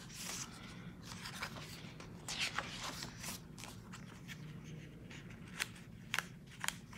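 Paper being handled at a planner: soft rustling with scattered light clicks and ticks, a cluster about two and a half seconds in and several more near the end.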